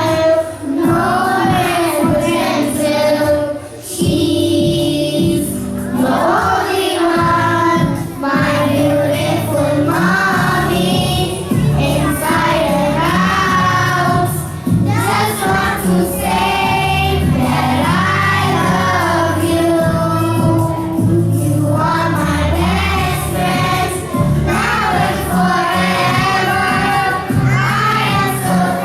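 A group of young children singing a song together in chorus over instrumental backing music.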